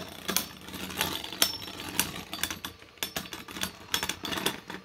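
Two 3D-printed Beyblade spinning tops whirring in a stadium and clashing again and again with sharp, irregular clacks. The sound cuts off suddenly near the end.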